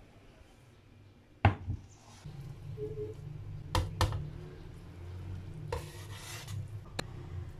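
A metal frying pan being handled: a sharp knock about a second and a half in, then a few lighter clinks and scrapes of the pan against a ceramic plate as the omelette is slid out, over a steady low hum.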